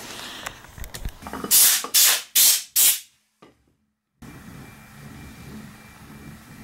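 Four short, loud hissing spray bursts, about half a second apart, aimed at a motorcycle carburettor rack. The sound cuts off suddenly after the last burst, and low room tone follows about a second later.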